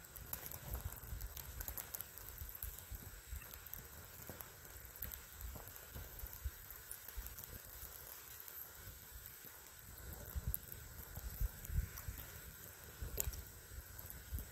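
Log campfire burning, the wood crackling with scattered small pops and one sharper pop near the end. Low rumbling on the microphone comes and goes, heavier in the last few seconds.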